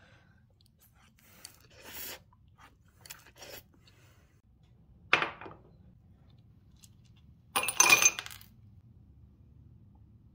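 A white ceramic cup clinks once as it is set down. About two and a half seconds later ice cubes clatter into it in a quick run of hard knocks.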